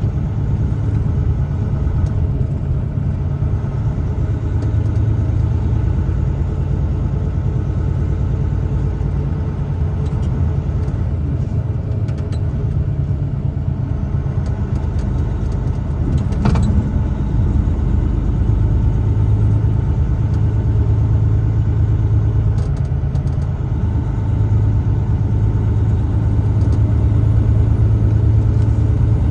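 A truck driving on the road: steady engine and tyre rumble heard inside the cab. A single sharp knock about halfway through.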